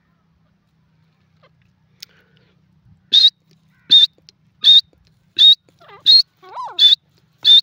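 Grey francolin calling: a series of loud, short, shrill notes about three every two seconds, beginning about three seconds in, with a softer, lower note rising and falling among them.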